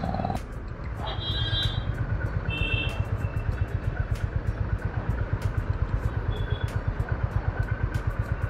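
Honda CB350's single-cylinder engine running at low revs, its exhaust pulsing in a fast, even beat. Two short high-pitched beeps come about a second and two and a half seconds in.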